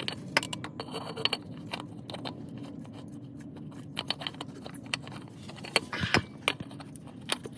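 Small metal tools and parts clinking and rattling as they are handled, in short, irregular clicks with a few sharper strikes about six seconds in, over a steady low hum.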